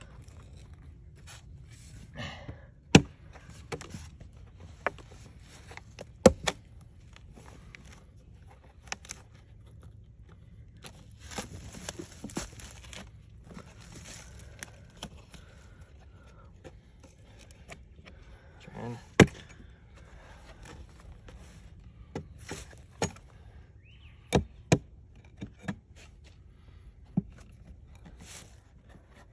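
An axe striking a log at irregular intervals, chopping off the bark, as sharp knocks with scraping and rustling between; the loudest blows land about 3, 6 and 19 seconds in and twice in quick succession near 24 seconds.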